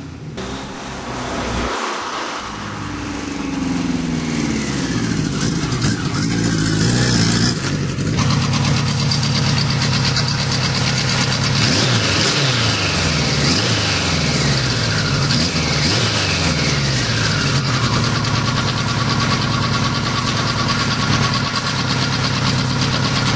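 Kawasaki Z1000 LTD's inline-four engine running. It grows louder as the bike comes closer, then runs close by with the revs rising and falling several times.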